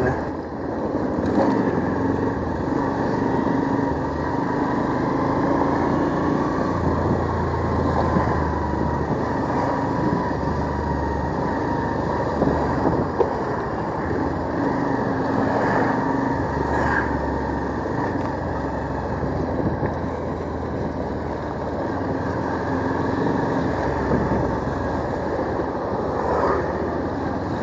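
Motorcycle engine running at low speed in traffic, with wind and road noise on a handlebar-mounted microphone; its low engine note comes and goes every few seconds as the throttle changes.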